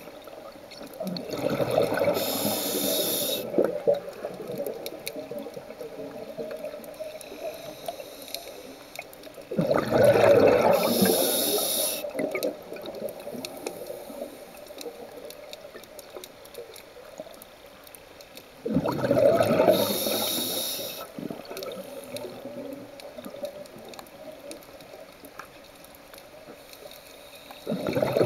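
Scuba diver breathing through a regulator underwater: slow breaths about every nine seconds, each a burble of bubbles ending in a short hiss, with quieter water noise between.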